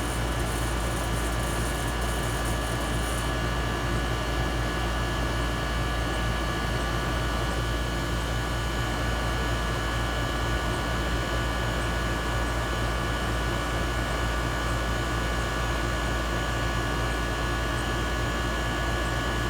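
A 16-year-old Trane R22 air-conditioning unit running steadily, its compressor and condenser fan making a low hum with several steady tones, while R22 is charged into it as vapor. A faint high hiss stops about three seconds in.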